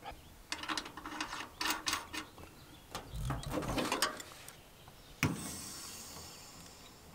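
An Allen wrench clicks and scrapes in the brass service valve of a mini-split condenser as the valve is turned open. About five seconds in there is a sharp click, then a fading hiss as refrigerant flows out of the condenser and charges the line set.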